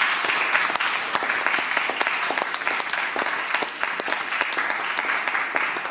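Audience and panelists applauding: many people clapping steadily.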